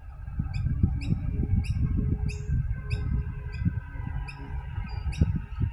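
A small bird chirping repeatedly, about two short high chirps a second, over a loud, uneven low rumble.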